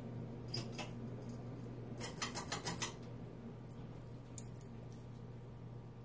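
Ceiling fan motor running with a steady hum, with sharp clicks from the light kit's pull-chain switch and chain: a couple about half a second in, a quick run of about six clicks around two to three seconds in, and one more near four and a half seconds, as the light is switched off.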